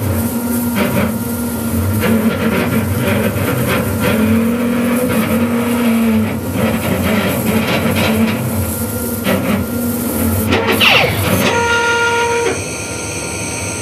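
Laser engraver running as it burns a pattern into ham: a steady mechanical hiss and hum, with the whine of the head's drive motors gliding up and down in pitch as the head sweeps back and forth. About twelve seconds in, a short steady beep sounds, and the machine noise then drops as the job finishes.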